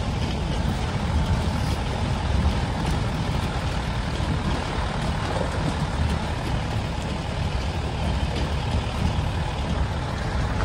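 Open safari jeep driving along a rough dirt track, heard from the rear seats: a steady low rumble of engine and tyres on the uneven ground.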